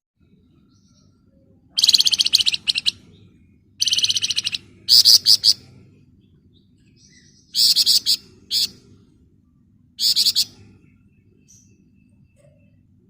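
Songbird known to Indonesian keepers as 'flamboyan' giving bursts of fast, dense, rattling trills, about five short bursts with pauses between them.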